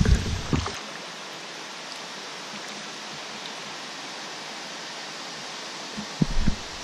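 Steady even rush of a waterfall flowing strongly ahead, with a few low thumps in the first second and again near the end.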